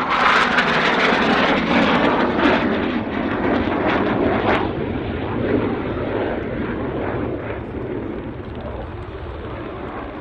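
Jet noise from a Dassault Rafale's twin Snecma M88 turbofans as the fighter passes close, loudest at the start with a rough crackle. The sound then fades steadily as the jet flies away.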